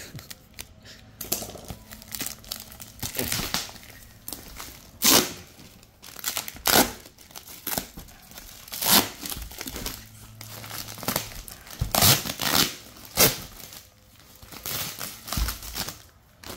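Clear plastic wrapping and its tape being crinkled and ripped open by hand: a run of crackling with several sharp, loud rips at irregular moments.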